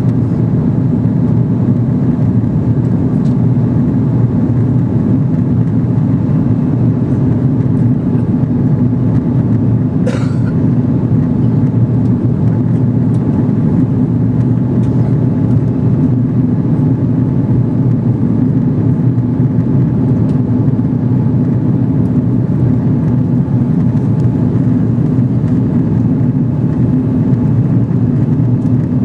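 Steady cabin noise inside an Airbus A330 in flight: a deep, unchanging rumble of engines and airflow, with a brief sharp sound about ten seconds in.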